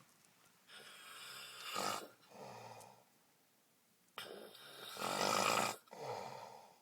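A man passed out drunk, snoring loudly: two long snores about three and a half seconds apart, each drawn out in two parts, the second one louder.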